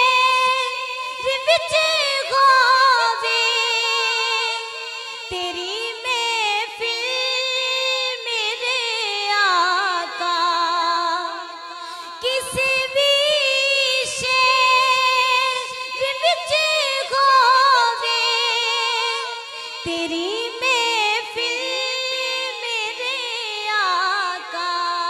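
A woman singing a Punjabi naat (Islamic devotional song) in long, wavering held notes.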